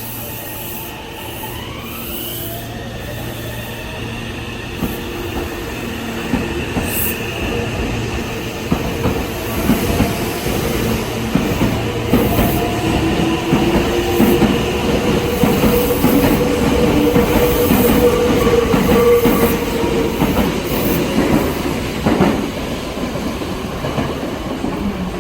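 Meitetsu 2200-series electric multiple unit pulling away: its traction motors give a rising whine in the first few seconds, then the train gets louder as it gathers speed past, wheels clacking over rail joints with some squeal.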